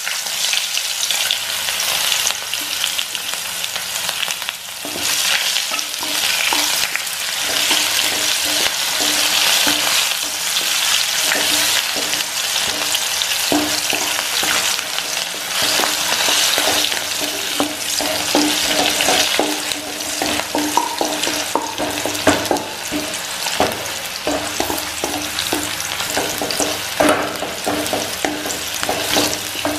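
Sliced onions sizzling in hot oil in a kadai, stirred with a wooden spatula. A steady frying hiss runs throughout, with many small crackles and spatula scrapes against the pan.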